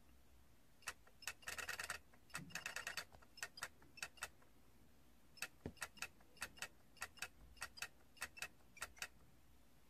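Stacked small plastic toy figures clicking against each other: sharp, irregular clicks, often in pairs. Between about one and three seconds in there are two short, rapid rattles of clicks, and there is a pause of about a second around the middle.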